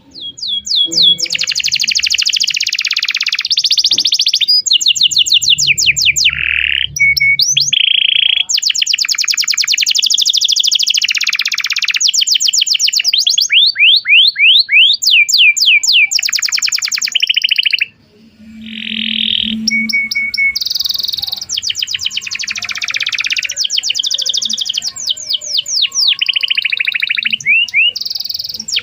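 Domestic canary in full, long continuous song: fast trills and rolls of rapidly repeated notes, one phrase running into the next, with a brief break a little over halfway through.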